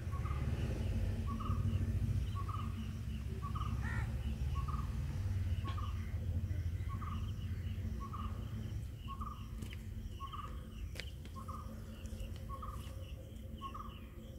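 A bird repeating one short call over and over at an even pace, a little under two calls a second. A low rumble sits under it in the first half and fades out.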